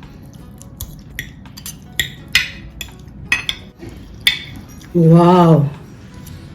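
Cutlery clicking and scraping against a dish while eating: a string of light, irregular clinks over the first few seconds.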